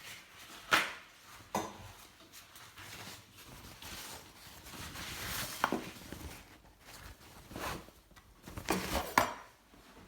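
Kitchen dishes and utensils being handled: a handful of sharp clinks and knocks spread through, with a soft hiss about halfway.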